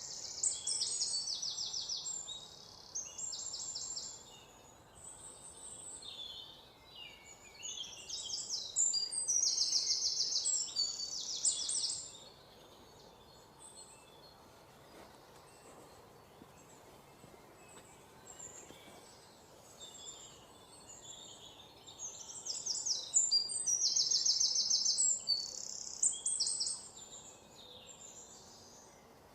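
Forest birds singing: three bouts of loud, rapid trills, at the start, around the middle of the first half and again near the end, with scattered short chirps between them over a faint background hiss.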